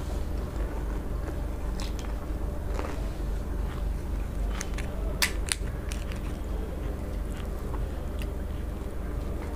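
Crisp fuchka (pani puri) shells being cracked, bitten and chewed close to the microphone, with scattered sharp crunches, the loudest a little past the middle. A steady low hum runs underneath.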